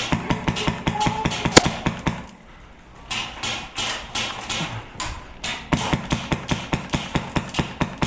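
HPA airsoft rifle firing in three quick strings of shots, about eight sharp cracks a second, with one louder crack about a second and a half in.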